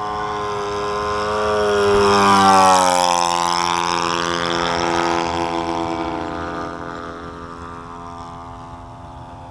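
RC model P-51 Mustang's Thunder Tiger 91FS four-stroke glow engine flying past. The engine gets louder to a peak about two and a half seconds in, its pitch drops as the plane goes by, and it then fades steadily.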